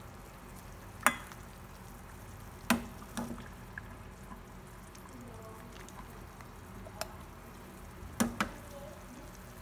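Soup being ladled from a steel pot into a ceramic bowl: a metal ladle clinks sharply against the pot and bowl about six times, over soft sounds of broth pouring and dripping.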